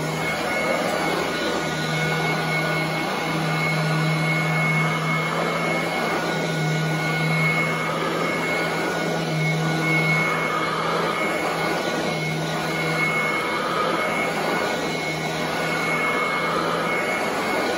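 Royal commercial upright vacuum cleaner running on carpet: a steady motor whine with a low hum that swells and fades every second or two as it is pushed back and forth.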